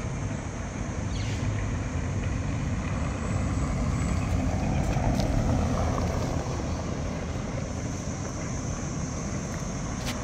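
Steady low rumble of outdoor background noise that grows louder around the middle and then eases off.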